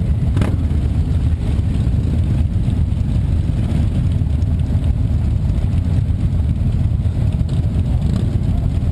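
Harley-Davidson V-twin motorcycle engines running steadily, a deep low rumble. A brief click about half a second in.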